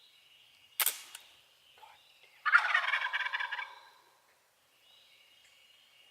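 Wild turkey gobbler gobbling once, a loud rapid rattling call about two and a half seconds in that lasts about a second. A sharp click comes about a second in, before it.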